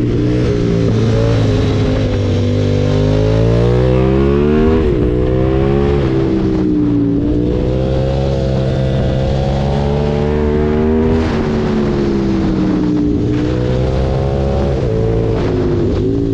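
KTM 990 Super Duke's V-twin engine pulling hard under acceleration, its pitch climbing, with a quick drop at a gear change about five seconds in. It then falls back and climbs again as the throttle is rolled off and on, over steady wind and road noise.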